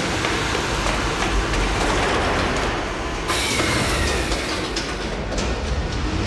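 A train running on the rails with a steady, dense noise. About three seconds in the sound turns brighter and a faint thin squeal comes through briefly.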